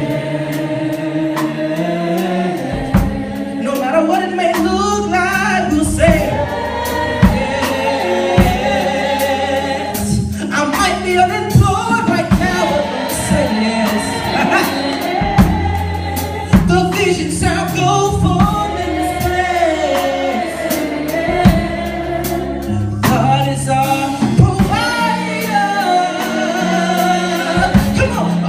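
Gospel song sung by a group of voices together, backed by a live band with bass and drums.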